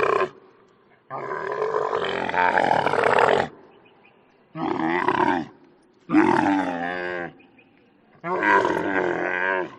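An animal calling: four drawn-out, loud calls, each about one to two and a half seconds long, with short pauses between them.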